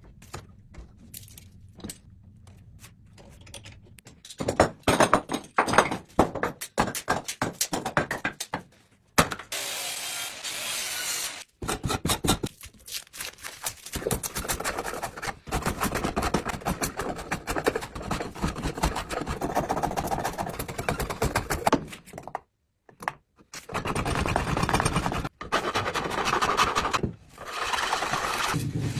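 Hand work on a wooden cricket bat: a run of sharp knocks, then long stretches of rapid scraping, broken a few times by sudden short gaps.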